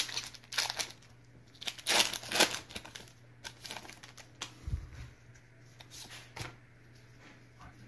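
Foil wrapper of a Pokémon trading card booster pack torn open and crinkled by hand, in short scattered rustles loudest about two seconds in, then the cards handled, with a soft low thump a little past halfway.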